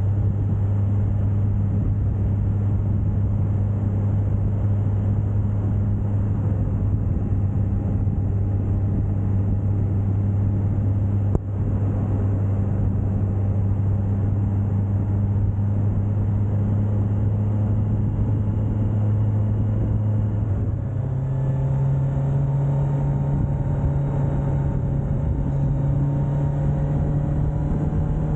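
Suzuki GSX1250FA's inline four-cylinder engine running at a steady cruise under wind and road noise, with a single short knock about eleven seconds in. About 21 seconds in the engine note steps up to a higher pitch and holds there.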